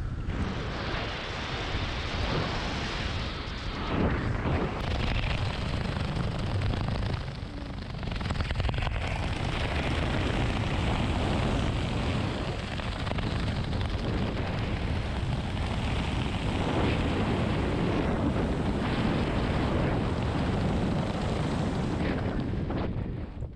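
Wind buffeting the camera microphone during a parachute descent under canopy, a steady loud rushing. It drops away sharply near the end as the canopy flies slow for landing.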